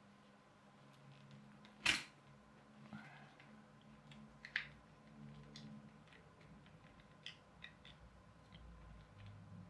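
Light plastic clicks and taps as the clear plastic chassis and small gears of a clockwork toy car are handled and fitted together, with a sharper clack about two seconds in and another about four and a half seconds in.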